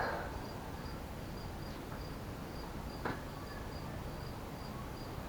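A cricket chirping steadily, a high pulse about three times a second, with two short knocks: one right at the start and one about three seconds in.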